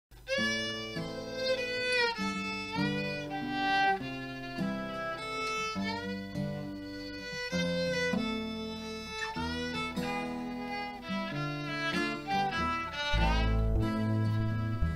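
Instrumental intro of a song: a fiddle plays a sliding melody over guitar chords, and a deep bass comes in near the end.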